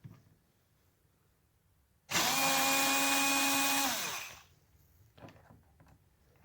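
Small 4-volt lithium-ion cordless screwdriver motor running at one steady pitch for about two seconds, backing a screw out of an angle grinder's housing, then falling in pitch as it spins down. A few light knocks follow.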